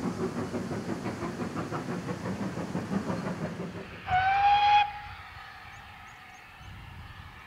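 Great Western Manor-class 4-6-0 steam locomotive working, its exhaust beating in a fast steady rhythm. About four seconds in comes one short, loud blast of the engine's steam whistle, just under a second long, and then only faint distant running.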